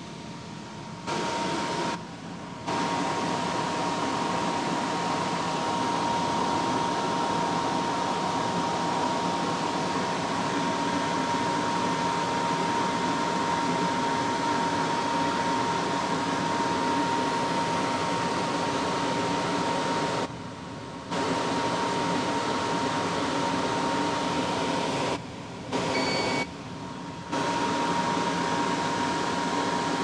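COLZER commercial dehumidifier running: a steady rush of air from its blower with a steady mid-pitched whine. The noise drops abruptly to a lower level for about a second several times. A short high beep sounds near the end.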